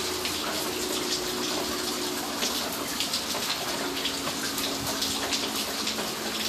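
Steady rushing noise of water, even and unbroken, with a faint low hum that comes and goes beneath it.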